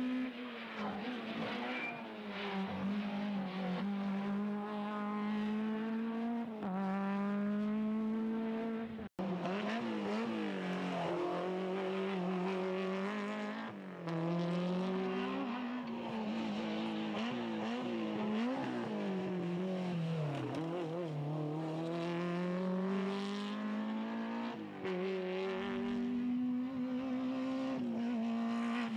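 Talbot Samba F2000 rally car's engine driven hard at high revs. The note climbs again and again, then drops sharply at gear changes and lifts. The sound cuts out for an instant about nine seconds in, then picks up with another hard run.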